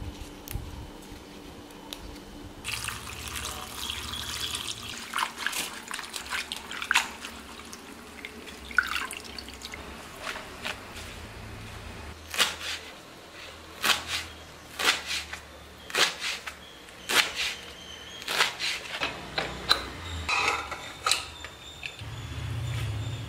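Water splashing and dripping while manathakkali (black nightshade) leaves are washed in a bowl, with a hiss of water early on and many short, sharp drips and taps through the rest.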